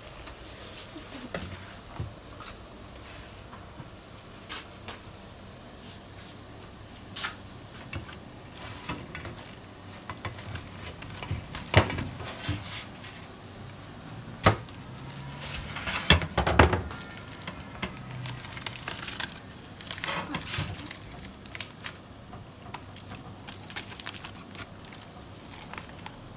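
Stainless steel steamer pot and perforated steamer tray clanking and knocking as a foil-wrapped fish is lifted out, with aluminium foil crinkling. The loudest is a handful of sharp knocks about halfway through.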